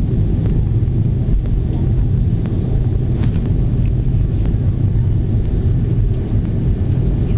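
Steady low rumble inside the cabin of an Avro RJ85 taxiing after landing: its four turbofan engines running at low power, with the airframe rolling over the taxiway. A few faint clicks about three seconds in.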